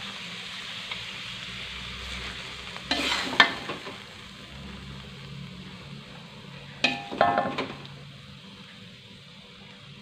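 Metal spatula scraping and knocking against a wok as stir-fried food is scooped out onto a plate, with two louder scraping clatters about three and seven seconds in, the second ringing briefly. Underneath, a steady faint sizzle of oil still hot in the pan after the stove is turned off.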